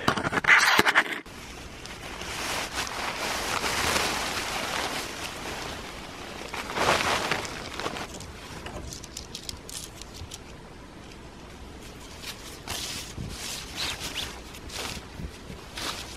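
Nylon tent fabric rustling as a tent is unpacked, shaken out and spread on snow, in swells of rustling with scattered small clicks and crunches in the second half. A brief louder noise comes right at the start.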